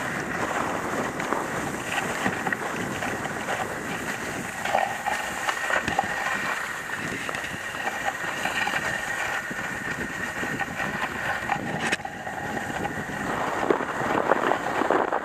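Dog sled gliding over a snowy trail behind running huskies: a steady rushing hiss of the runners on snow, with scattered small knocks and scrapes.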